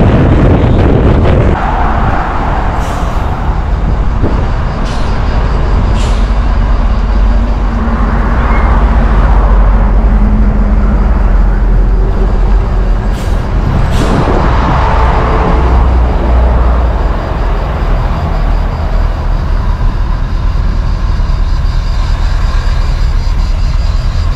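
A car on the move, heard from inside: a steady low rumble of engine and tyres with wind noise, and a few brief clicks.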